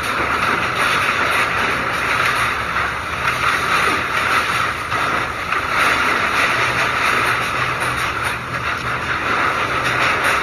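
Typhoon wind and heavy rain heard from inside a house: a loud, steady rushing with no break.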